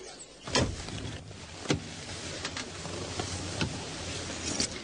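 A thump about half a second in, then a steady electric whir with a few light clicks as KITT's Pontiac Trans Am windows tint dark.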